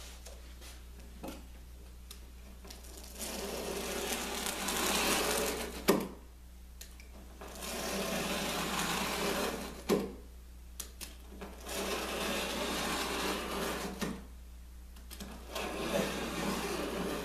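Utility knife drawn through a self-adhesive carpet tile along a metal straightedge: four long cutting strokes, each two to three seconds, with a sharp tick at the end of two of them. A steady low hum underneath.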